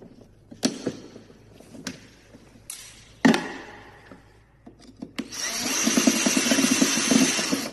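Handling clicks and a sharp knock, then a power drill running steadily for about two and a half seconds and stopping abruptly near the end, as if driving or removing a screw.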